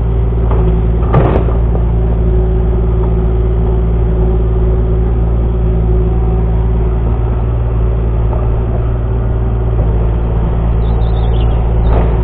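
Excavator's diesel engine running steadily under a low drone, with a short knock about a second in and another near the end.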